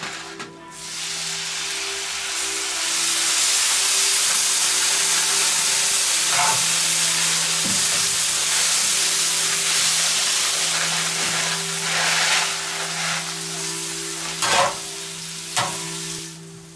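Liquid sizzling and hissing loudly as it hits a hot grill pan full of wok noodles, with steam rising. The hiss starts about a second in and slowly dies down. A metal spatula knocks and scrapes on the pan a few times near the end.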